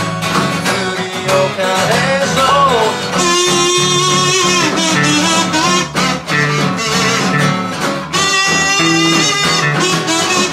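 A small band playing together: electric bass, acoustic guitar and an electronic drum kit through an amplifier, with a man singing for the first few seconds. From about three seconds in, a harmonica takes over the melody with held notes.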